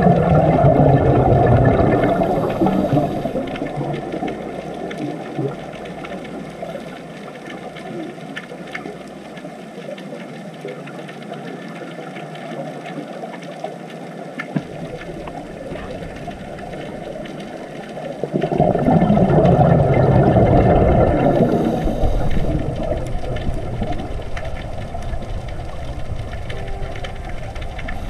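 Underwater sound heard with the divers: a steady watery hiss and rumble, broken by two loud bubbling surges of scuba divers' exhaled bubbles, one at the start and one about 18 seconds in.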